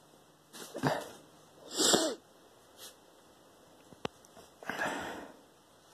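Small dog sneezing and huffing with her nose pushed into a blanket: three short noisy blasts of breath, the loudest about two seconds in, and a sharp click a little after four seconds.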